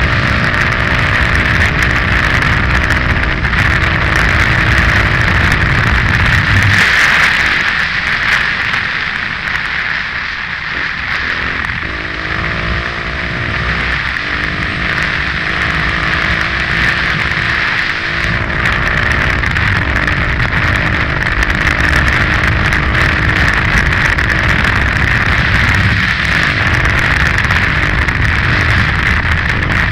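KTM 530 EXC-R single-cylinder four-stroke enduro engine running under load at speed, with a steady rush of wind and road noise. The engine note drops back for a few seconds about a quarter of the way in, then picks up again.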